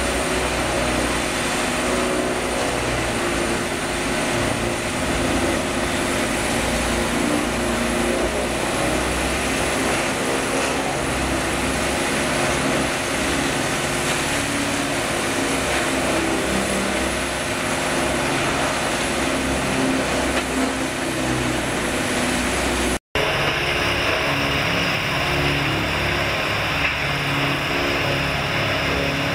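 Morbark tub grinder running under load: its diesel engine and the turning tub grinding brush and wood debris make a steady, heavy mechanical din. The sound drops out for an instant about 23 seconds in, then carries on.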